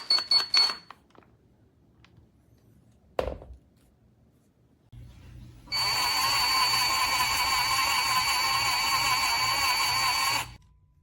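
A few clicks, then a knock about three seconds in, followed by a cordless brushless impact wrench's motor spinning freely with a steady high whine for about five seconds, without hammering. It stops abruptly near the end.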